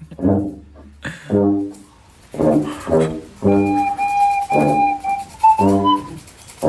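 Music: a low, buzzy wind-instrument-like note repeating in short pulses, with a steady higher whistle-like tone joining about halfway through.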